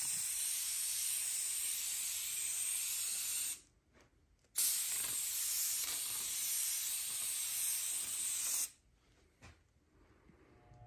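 Aerosol spray can hissing in two long sprays, about three and a half and four seconds long, with a short break of about a second between them, then it stops.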